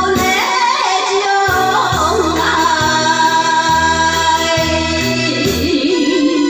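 Woman singing into a microphone over a karaoke backing track, her voice gliding through a slow melody above steady bass notes and accompaniment.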